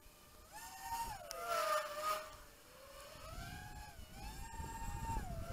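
Radio-controlled model aircraft with a three-blade propeller, flying overhead. Its motor whine rises in pitch twice as the throttle is opened and sinks back as it is closed. There is a short hiss about a second in, and a low rumble in the second half.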